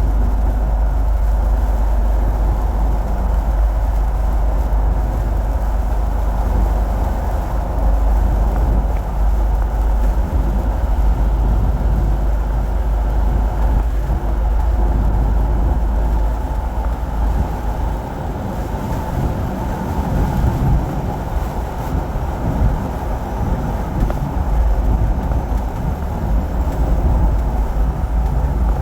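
Steady road noise and a low engine rumble from inside a moving vehicle on the highway.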